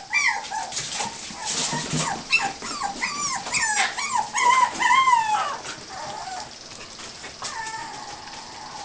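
Dachshund–poodle mix puppies playing and crying out in a fast run of short, high-pitched yips and whines, then fewer calls, with one longer drawn-out whine near the end.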